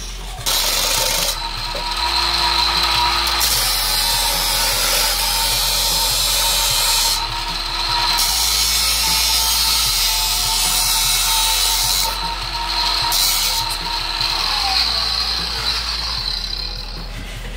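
DeWalt angle grinder running, its cut-off wheel grinding down a small brass part held against it, with a steady high whine over a rough rushing noise. The grinding noise drops away briefly three times as the piece comes off the wheel, and the whine falls away near the end.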